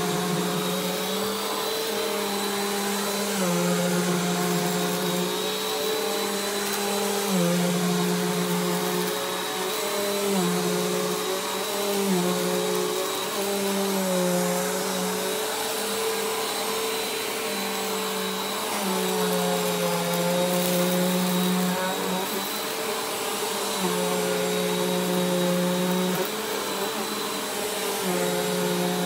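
Bissell compact upright vacuum cleaner running on a thick shag rug. Its motor hum drops and rises in pitch every couple of seconds as it is pushed back and forth over the pile, over a steady high whine.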